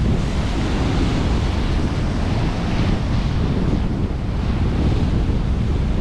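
Sea waves breaking and washing in foam around concrete breakwater blocks, with wind buffeting the microphone as a steady low rumble.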